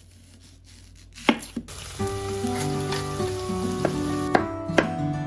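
Food sizzling in oil in a frying pan, with a couple of sharp clicks a little over a second in. Background music with a melody comes in about two seconds in.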